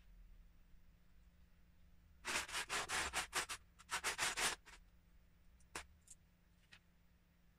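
Loose Lego bricks clattering and scraping as a hand rummages through a pile of them in a plastic storage tub, in two rattling bursts of about a second each, followed by a few single clicks.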